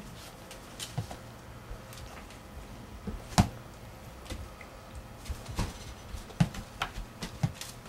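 A few sharp clicks and knocks from handling and movement in a small room, the loudest about three and a half seconds in and several more close together later, over a low steady hum.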